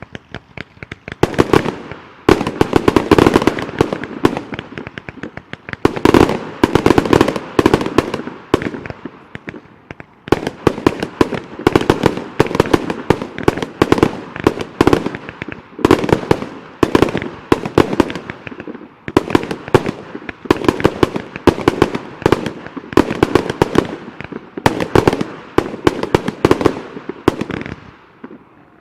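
1.3G display fireworks firing a long rapid volley, many shots and bursts a second in quick succession, with brief dips a few times before it tails off at the end.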